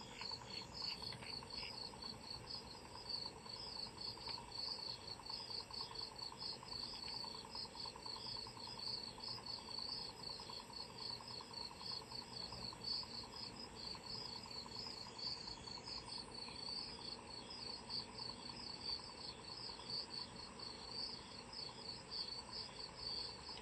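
Crickets chirping in a fast, even pulse, with a thin steady high whine behind them.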